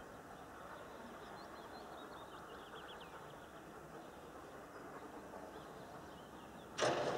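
Quiet outdoor ambience with a few faint bird chirps, then near the end a sudden loud clank from a mechanical semaphore signal as its arm drops back to the stop position.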